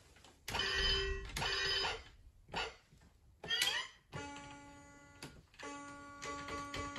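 Battery-powered musical toy playing tinny electronic sounds from its small speaker. There are two short ringing bursts in the first two seconds and a couple of brief chirps, then a steady electronic tune starts about four seconds in.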